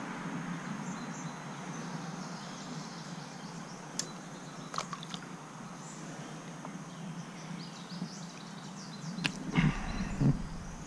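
Steady outdoor riverbank ambience: the even rush of flowing river water with faint bird chirps over it. A few short clicks come partway through, and a cluster of louder knocks and handling noises comes about nine to ten seconds in.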